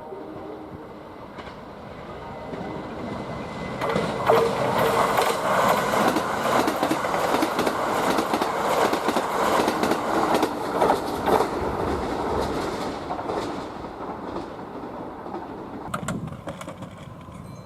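Kintetsu limited express electric train running through the station. The sound builds up, then comes a long loud stretch of rapid wheel clatter over the rail joints, and it fades away near the end.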